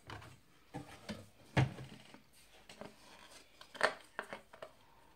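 Hard plastic clicks and knocks, about eight of them at uneven intervals, as a small collectible figure is worked onto its plastic base. The loudest come about one and a half seconds in and just before four seconds.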